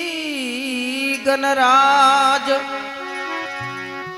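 A man singing a Marwari devotional bhajan. He draws out a long, wavering note that slides down, then sings the word 'Ganraj', with steady held notes from an accompanying instrument underneath.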